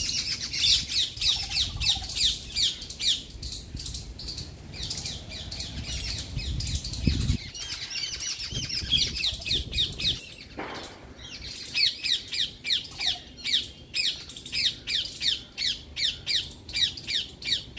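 Birds calling in a tree: a rapid run of short, high, squawky notes, about three a second, that thins out for a few seconds in the middle and then picks up again.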